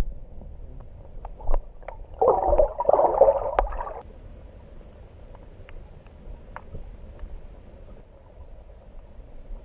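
Muffled water sound heard through a submerged camera: a gurgling rush of water a couple of seconds in, lasting about two seconds, then a faint steady hiss with a thin high whine and a few light clicks.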